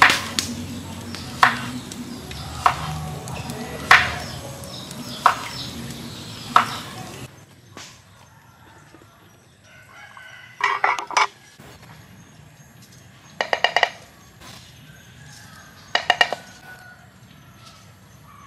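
Knife chopping vegetables on a wooden cutting board, single sharp chops a little over a second apart. About seven seconds in the chopping stops and a few short, rapid rattling bursts follow.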